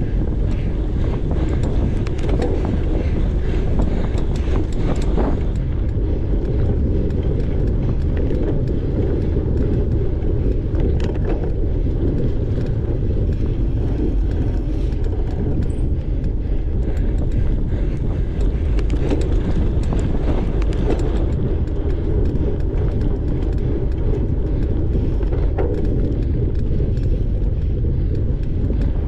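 Steady wind rush on the microphone and tyre rumble from a cyclocross bike ridden fast over a dirt course, with scattered rattles and clicks from the bike.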